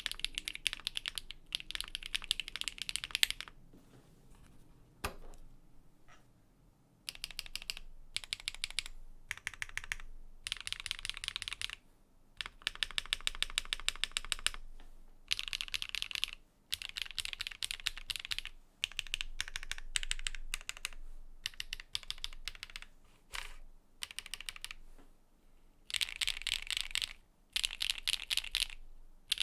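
Typing on a Luminkey LK75 V2 mechanical keyboard with a polycarbonate plate and LK Astral switches: fast runs of keystrokes lasting one to three seconds, separated by short pauses.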